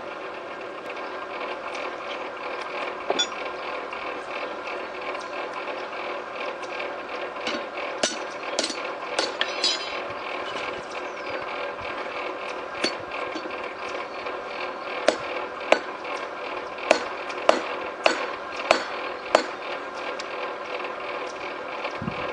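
A hand hammer strikes steel on an anvil: a scattering of sharp, ringing blows at uneven spacing, starting about a third of the way in, over a steady mechanical whirr.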